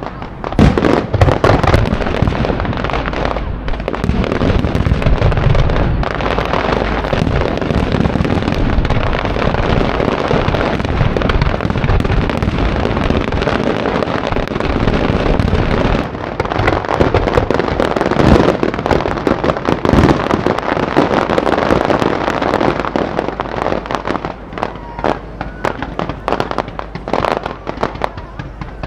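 Fireworks display with aerial shells bursting in a dense, nearly continuous barrage of overlapping bangs. Near the end the bangs thin out into more separate reports.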